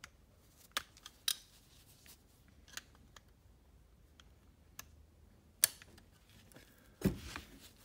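A small metal tool working at the piston-pin circlips of an old diesel piston, making scattered sharp metallic clicks. A louder knock comes near the end.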